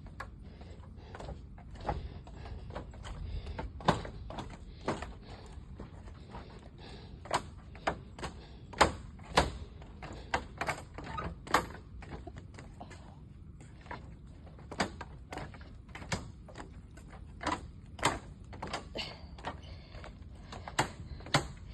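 Irregular sharp clicks and knocks, a few every second or two, over a steady low rumble.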